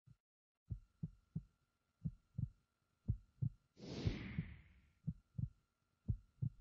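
Heartbeat sound effect: low thumps in lub-dub pairs about once a second, over a faint steady high tone, with a whoosh that swells and fades about four seconds in.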